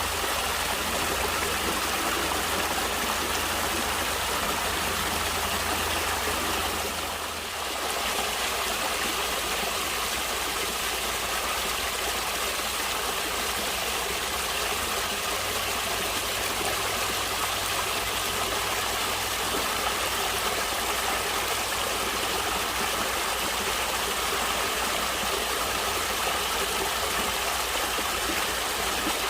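Stream water flowing steadily, an even rushing sound that dips briefly about seven seconds in.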